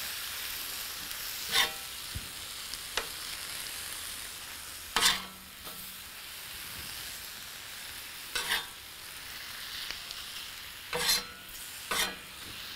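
Pastrami slices sizzling steadily on a hot flat-top griddle, with a metal spatula scraping sharply across the steel five times as the slices are lifted and stacked. The loudest scrape is about five seconds in.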